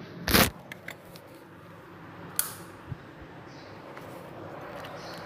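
Handling noise from a phone being grabbed and moved: a loud knock about half a second in, then a few lighter clicks and rubbing over a low room hum.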